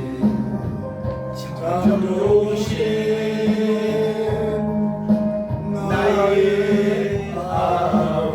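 Slow worship music: a praise song with long held accompaniment chords and singing voices coming in and out over them.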